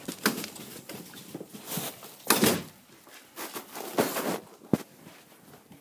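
Irregular knocks, thumps and short rustling bursts, several within a few seconds, the loudest about two and a half seconds in and again around four seconds: people and a dog moving on a hardwood floor close to the microphone.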